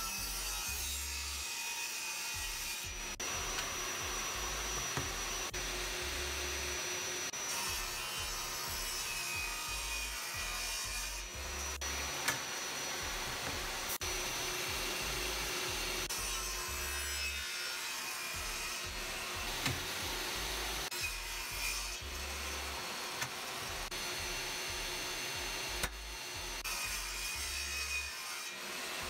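Table saw running with a steady whine, its circular blade ripping pine boards in repeated passes, the cutting noise shifting every few seconds as each board is fed through.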